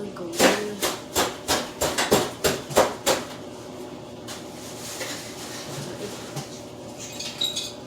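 Dishes and utensils clattering on a table: a quick run of about eight knocks in under three seconds, then quieter.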